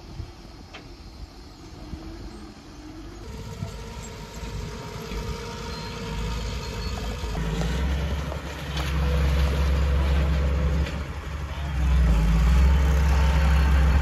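Small Komatsu bulldozer's diesel engine working under heavy load as it pushes dirt up a mound. It grows steadily louder and is loudest in two long spells from about halfway on, with a brief dip between them.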